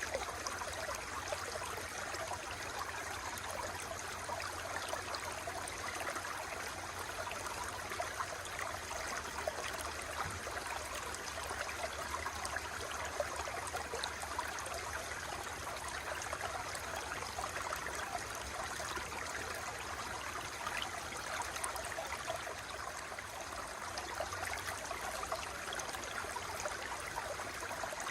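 Running water flowing steadily, a continuous stream-like rush with many small flickering splashes and no breaks.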